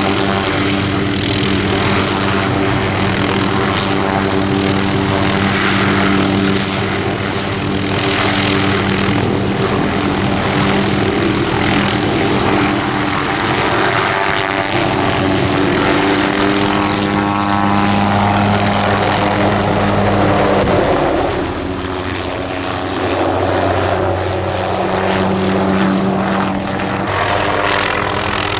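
Police helicopter running steadily at close range: a constant low engine and rotor hum under a broad rush of rotor wash and wind.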